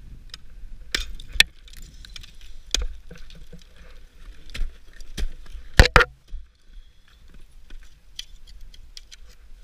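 Ice axe picks and crampon points striking brittle waterfall ice: a string of sharp, irregularly spaced strikes, the loudest a quick double strike about six seconds in.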